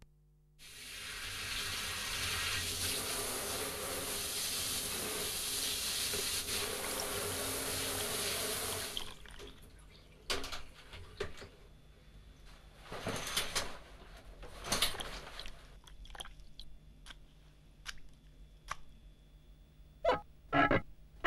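Water running for about eight seconds, then shutting off, followed by scattered small clicks and knocks and a few short pitched sounds near the end.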